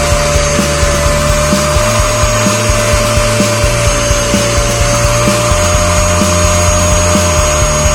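Bissell suction vacuum running with a steady whine, over background music with a steady beat and a bass line.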